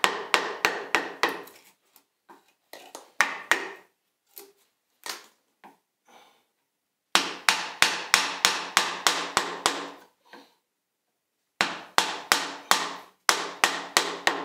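Wooden mallet tapping a carving gouge as it chops out the bowl of a birch spoon: runs of quick, sharp wooden knocks, about five a second, with short pauses between the runs.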